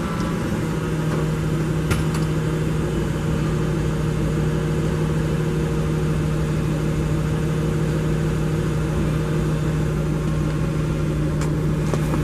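Caterpillar GP50K forklift's LPG engine idling steadily, with a faint click about two seconds in and another near the end.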